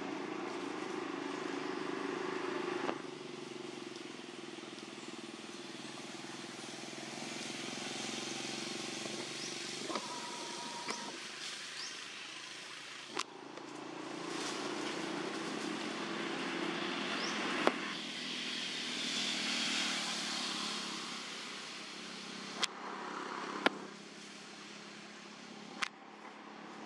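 Low engine hum of motor traffic, swelling and fading several times, with a few sharp clicks in the second half.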